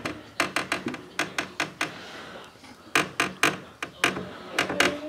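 Runs of sharp metallic clicks and knocks, several short bursts of a few quick clicks each, from a gloved hand working on the sheet-metal cabinet of a Fantech VHR 70 heat recovery ventilator.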